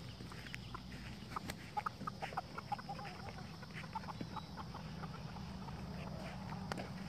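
Chickens clucking softly: a run of short, quiet calls, thickest in the first half, over a low steady hum.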